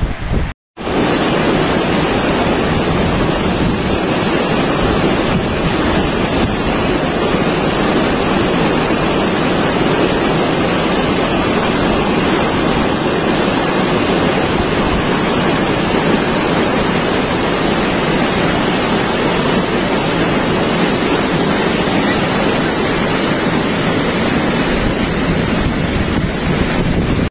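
Muddy floodwater rushing down a wadi channel: a loud, steady noise of fast-running water. It cuts out briefly just under a second in.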